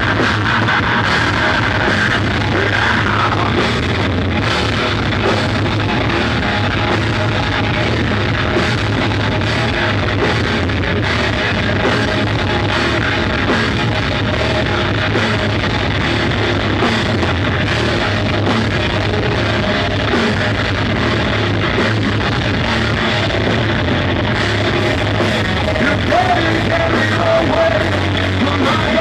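A live heavy rock band playing loud: electric guitars and a drum kit, with a singer's vocals over them.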